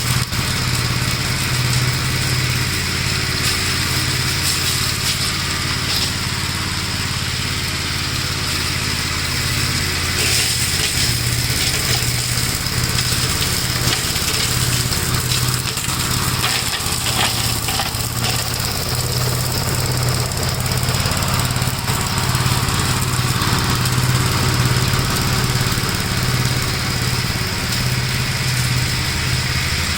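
1956 Gravely Model L walk-behind tractor's single-cylinder engine running steadily under the load of its brush hog mower, mulching fallen nuts, with some brief crackling in the middle of the stretch.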